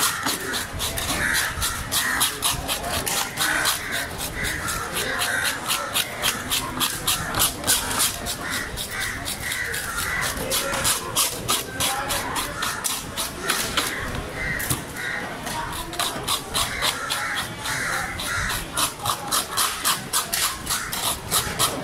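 Knife blade scraping the scales and skin of a golden pomfret in quick, rasping strokes, about three or four a second, with a short lull about two-thirds of the way through.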